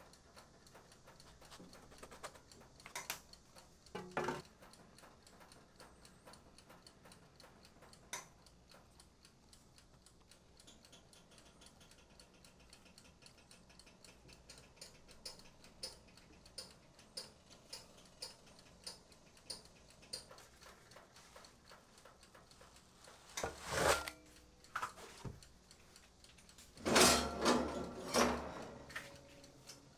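Scattered light clicks and taps, a run of about nine soft evenly spaced ticks in the middle, and a louder clatter near the end.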